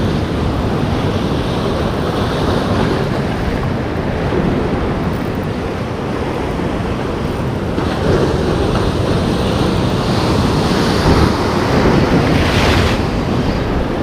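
Heavy surf breaking and washing over a rocky shore, a steady rushing with swells of louder crashing partway through and near the end, with wind buffeting the microphone.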